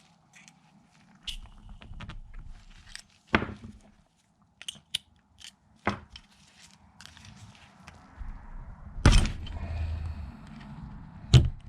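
Clicks, taps and knocks of a 5.3 V8's hydraulic lifter being worked apart by hand, its gummed-up plunger being worked loose from the lifter body. The clicks are scattered, with a louder knock about nine seconds in and another near the end.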